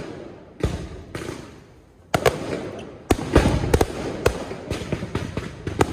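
Aerial fireworks bursting: a run of sharp bangs, each trailed by crackling, coming thicker and faster from about three seconds in.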